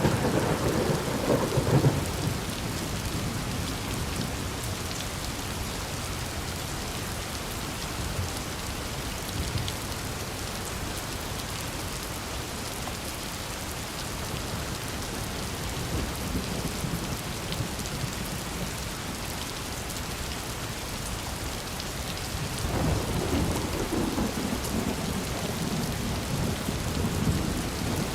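Steady rain falling, with thunder rumbling low in the first couple of seconds and again through the last five seconds or so.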